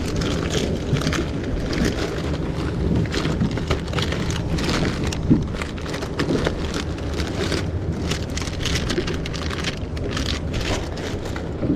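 Plastic lure packets crinkling and rustling in irregular crackles as hands dig through a fabric tackle bag, over a steady low rumble.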